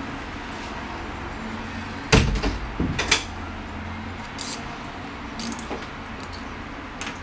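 Small plastic and metal 3D-printer parts handled and knocked together during assembly: a loud rattling clatter about two seconds in, a second shorter one a moment later, then a few light clicks.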